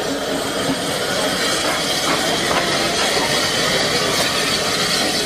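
Small narrow-gauge steam tank locomotives on the move, giving a steady hiss of steam mixed with running noise.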